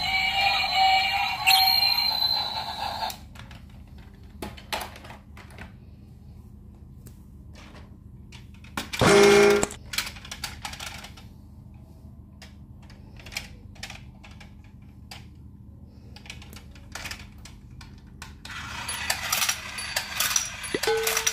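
A battery-powered light-up toy train plays its electronic tune, which stops about three seconds in. Then come scattered clicks and knocks of plastic toys being handled, a brief loud toy tone about nine seconds in, and from about nineteen seconds a toy domino train running, its plastic dominoes clicking and clattering as they are laid.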